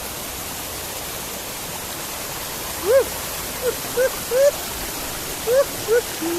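Steady rushing of a waterfall and stream. About halfway through, a run of about seven short calls, each rising then falling in pitch, cuts in over the rush and is the loudest part.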